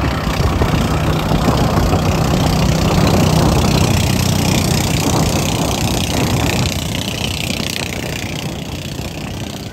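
Motorboat engine running at speed while towing a banana boat, with water rushing and splashing around the hull and the inflatable. The engine hum is strongest around the middle and fades over the last few seconds.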